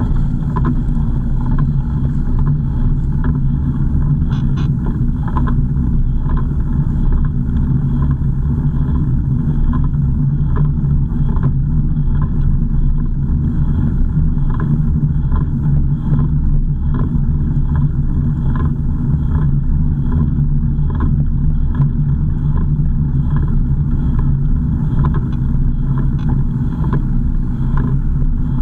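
Car driving steadily, heard from inside the cabin: a continuous engine and road rumble, with a light tick repeating about every two-thirds of a second.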